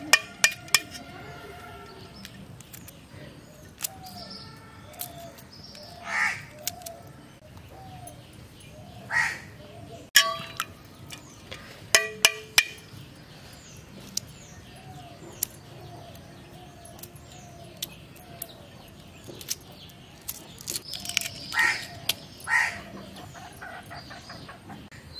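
Hard-boiled eggs being peeled by hand over a bowl of water: sharp clicks of eggshell cracking, a few near the start, one about ten seconds in and three more soon after. Crows caw several times and small birds chirp in the background.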